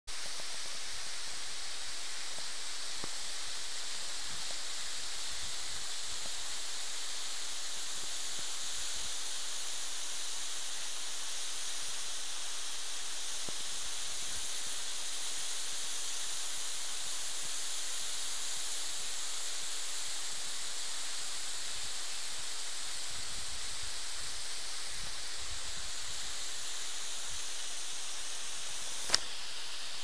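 Waterfall's steady rush of falling water, an even hiss. A single sharp click about a second before the end.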